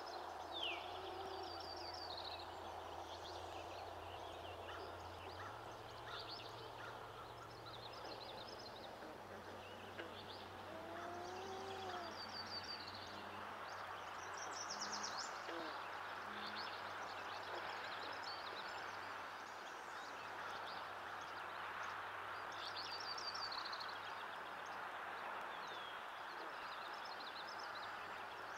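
Songbirds singing in a dawn chorus: many short, overlapping high trills and chirps over a steady hiss, with a faint low hum underneath.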